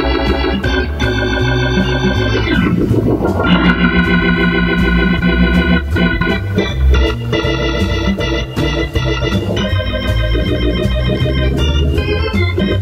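Hammond organ playing a bebop jazz improvisation: sustained chords and quick single-note runs over a steady bass line that moves about twice a second.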